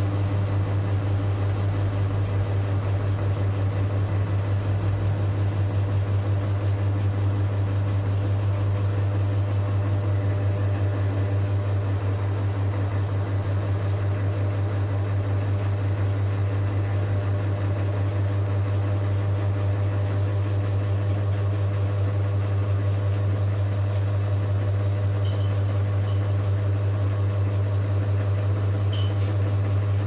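Niga FC05-50 18-inch mini ceiling fan running at steady speed: a strong, steady deep motor hum with the whir of the spinning blades.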